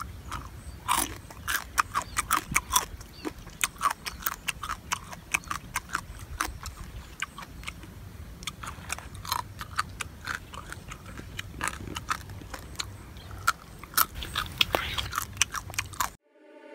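A person biting and chewing crab, a steady run of irregular crunches and sharp cracks that cuts off suddenly near the end.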